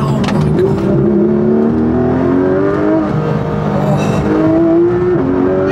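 Porsche 991.1 GT3RS flat-six engine, heard from inside the cabin, pulling hard with its revs climbing, then dropping sharply on upshifts twice, about three seconds in and near the end, before climbing again. The car is on its stock exhaust.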